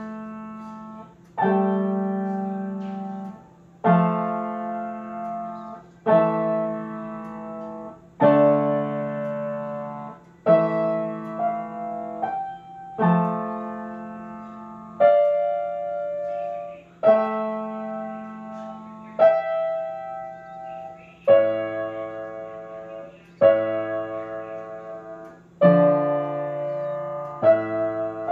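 Grand piano being played: chords struck about every two seconds, each left ringing and fading, with a few quicker notes in between.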